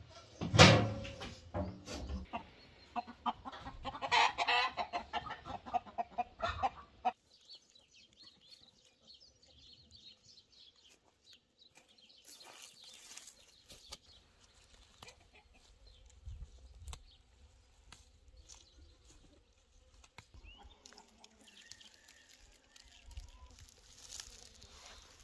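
A flock of chickens clucking, with a loud call about half a second in. The calls stop abruptly about seven seconds in, leaving only a faint background.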